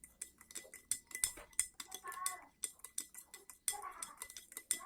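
A spoon stirring lime juice and sugar in a glass, clinking rapidly against the glass, about four to five clinks a second, to dissolve the sugar. Two short high calls sound behind it, about two and four seconds in.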